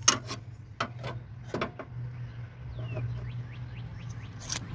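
A lawn mower runs in the background with a steady low drone. A few sharp clicks come from a wood-and-brass Stanley sliding bevel square being handled against a metal toolbox, and a bird gives a short run of high chirps in the middle.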